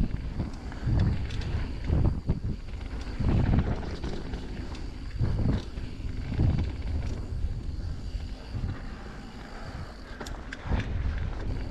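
Mountain bike riding down a dirt singletrack: wind buffeting the microphone in uneven gusts over the rumble of tyres on dirt, with a few sharp clicks and rattles from the bike. The noise eases about eight seconds in and picks up again near the end.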